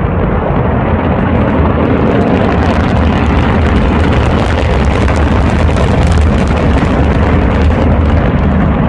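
Orbital rocket at launch: a loud, steady rumbling roar with dense crackling that builds about two seconds in and holds. The launch fails and the rocket explodes.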